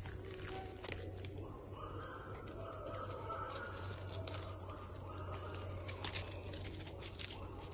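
Footsteps crunching through dry fallen leaves and twigs on a forest floor, a steady run of crackles and rustles.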